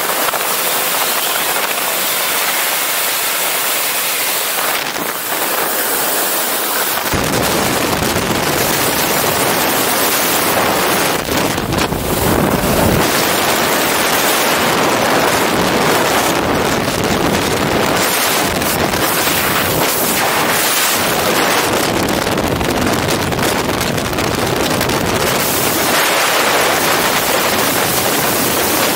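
Loud, steady rush of wind and aircraft noise on a helmet-mounted camera's microphone, which turns deeper and fuller about seven seconds in and carries on as the rush of freefall air.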